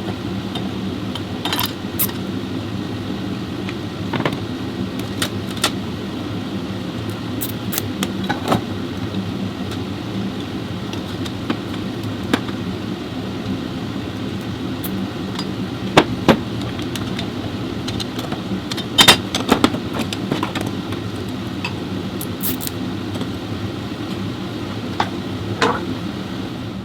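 Diesel engine of a 2014 Chevrolet Orlando running steadily, with scattered sharp clicks and knocks, the loudest about two-thirds of the way through.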